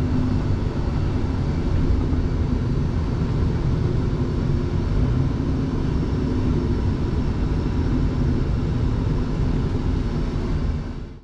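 Scania truck's engine and drivetrain running while driving, heard from inside the cab as a steady low rumble. It fades out at the very end.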